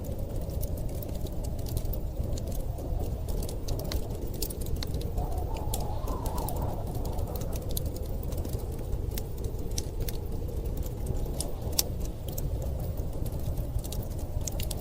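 Wood fire crackling with many scattered sharp pops, over a steady low rumble of storm wind whose howl rises briefly in pitch around the middle.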